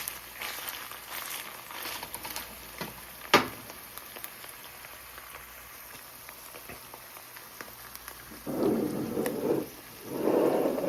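Egg-white scramble bubbling and crackling in olive oil in a frying pan, with one sharp tap about three seconds in. Near the end come two louder, duller stretches of sound, each about a second long.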